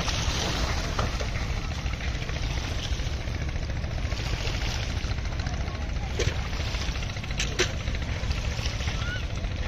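Steady low outdoor rumble of riverbank ambience, with a few sharp knocks about six seconds in and twice more, close together, about a second later.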